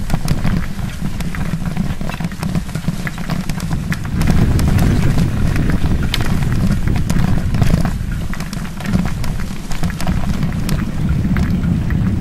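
Wind buffeting the microphone of a camera on a moving bicycle, a heavy low rumble, with many small clicks and rattles as it rolls over a bumpy grass path.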